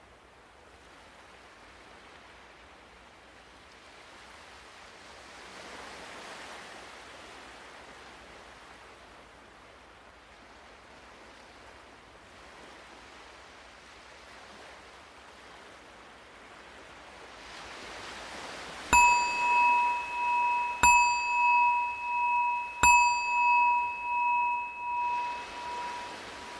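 Ocean waves washing in and out softly, then a meditation bell struck three times about two seconds apart, marking the close of the breathing practice. The ringing carries on between and after the strikes, wavering in loudness.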